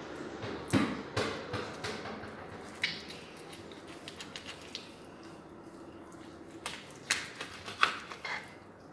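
Kitchen knife scraping and cutting along a raw salmon fillet: a series of short scrapes and clicks, the sharpest ones near the start and again near the end.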